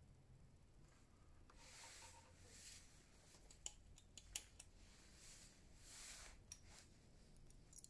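Faint handling sounds on a sewing machine that is not running: soft rustling, then a few small sharp clicks of metal parts such as bobbins being picked up and set down about halfway through, and another rustle near the end.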